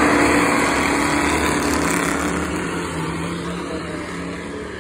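Dirt-track stock car engine running at speed as the car passes, its sound fading steadily as it moves away.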